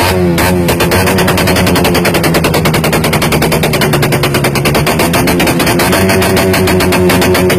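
Suzuki Raider 150's single-cylinder engine running loud through an open aftermarket exhaust pipe, held at high revs so that the exhaust pulses come in a rapid, even rattle. The revs sag slightly past the middle and pick up again.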